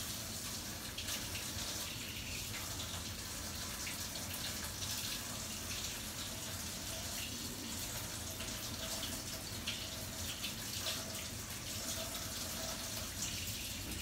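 Tap water running steadily into a sink, rinsing a new Keurig water filter cartridge before it is fitted.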